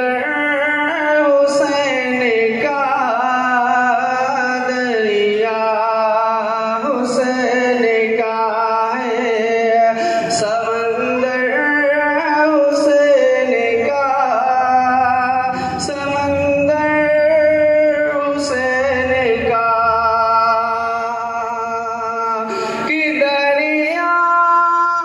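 A man's solo voice singing an Islamic devotional poem, unaccompanied, through a microphone and loudspeakers, in long drawn-out notes that waver and bend in pitch.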